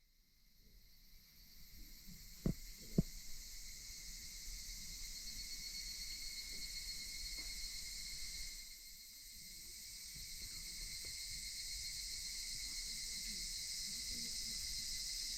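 Faint, steady high trilling of insects, with two short knocks about two and a half and three seconds in.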